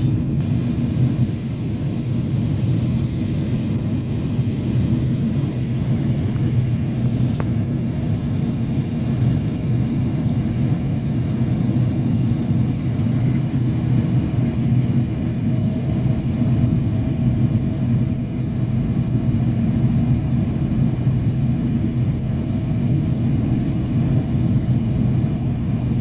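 Jet airliner cabin noise on the descent: a steady low roar of engines and rushing air, heard through the cabin window. A faint steady hum comes in about halfway through.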